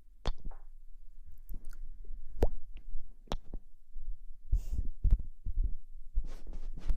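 Close-miked ASMR handling sounds: irregular soft thumps and sharp clicks mixed with short bursts of brushing or rustling against the microphone.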